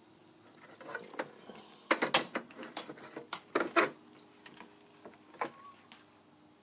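Sharp clicks and taps from handling the opened-up Cobra 148 CB radio's chassis and parts, bunched together about two to four seconds in, with a few lighter ticks before and after.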